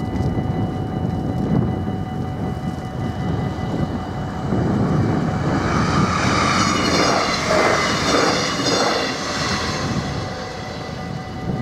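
Level-crossing warning bell ringing steadily while the barriers are down, over a low wind rumble on the microphone. From about five seconds in, a broad rushing noise swells up, peaks, and fades away by about ten seconds in.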